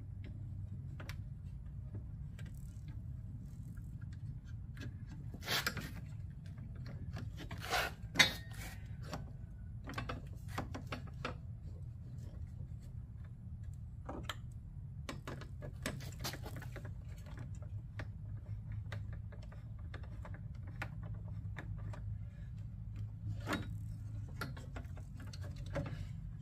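Hand work on a light bar mounting frame behind a van's front grille: scattered clicks, taps and small rattles of plastic and metal as screws are fitted into the frame, with a few sharper knocks about six to eight seconds in. A steady low hum lies underneath.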